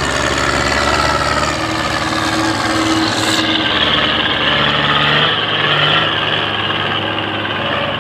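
Belarus 510 tractor's diesel engine running steadily as it hauls a heavily loaded sugarcane trailer past close by, with a brief hiss about three seconds in.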